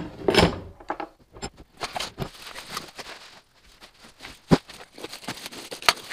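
Unpacking: cardboard and bubble wrap rustling, with irregular knocks as heavy metal parts of a deep hollowing rig are set down on a wooden bench; the loudest knocks come at the start and twice in the second half.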